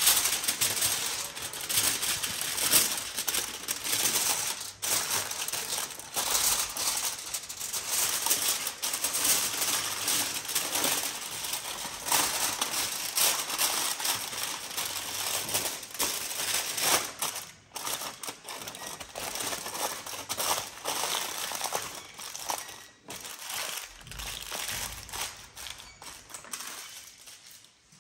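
Aluminium foil crinkling and crackling as it is folded and pressed around a whole fish to make a parcel: a dense run of crisp rustles and crackles that thins out and quietens in the last few seconds.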